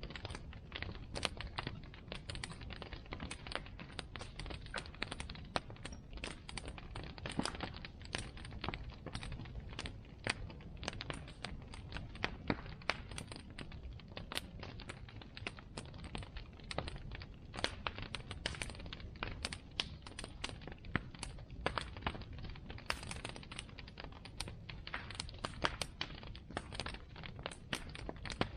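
Bonfire crackling: an irregular, unbroken stream of sharp pops and snaps over a low rumble.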